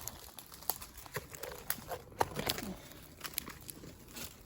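Light rustling and crackling of leaves and twigs, a scatter of small irregular clicks.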